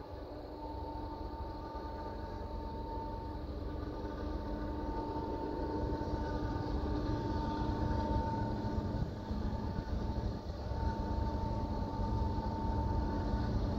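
Union Pacific manifest freight's diesel locomotives approaching: a low rumble with a steady engine drone, growing gradually louder.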